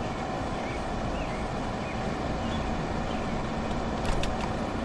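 Steady background noise, a constant hiss and hum, with a few faint short high chirps and a couple of light clicks about four seconds in.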